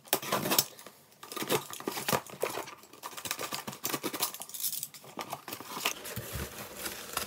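Box cutter slicing through packing tape on a cardboard shipping box: a run of irregular scrapes, clicks and tearing as the tape is cut and pulled.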